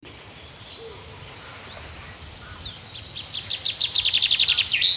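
Songbirds singing: scattered high whistled notes and glides, then a fast run of repeated down-slurred notes, about eight a second, that grows louder toward the end.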